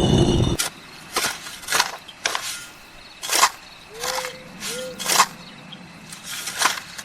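A small motor running stops suddenly about half a second in. Then come irregular sharp clicks or knocks, about one or two a second, with two short squeaks around the middle.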